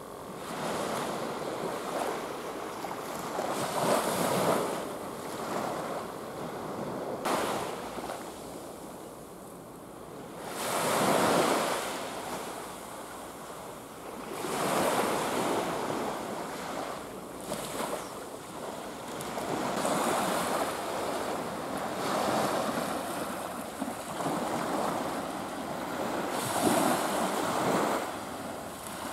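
Small waves breaking and washing up a sand-and-pebble beach, surging and receding every few seconds.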